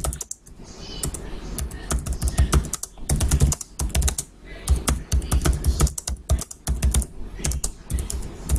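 Typing on a computer keyboard: quick runs of key clicks with short pauses between them, each stroke carrying a dull thud.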